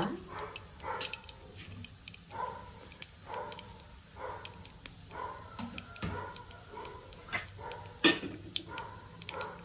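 Mustard seeds sizzling and popping in hot oil in a kadai: irregular sharp pops and crackles, with one louder pop about eight seconds in.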